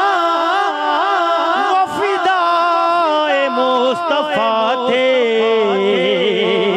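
A man's voice singing a naat into a microphone, drawing the words out into long, ornamented held notes that bend up and down, with a fast quavering vibrato in the second half.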